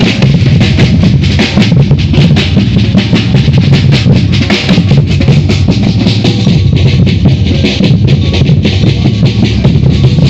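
Batucada drum group playing loud, continuous samba percussion: deep surdo bass drums under a dense layer of snare drum strokes.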